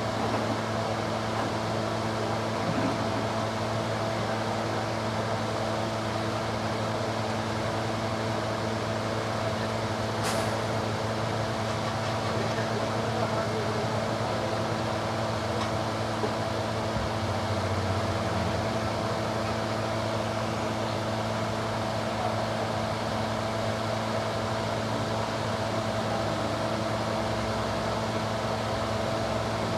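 Engine running at a steady idle, an even hum that holds without revving, with a single sharp click about ten seconds in.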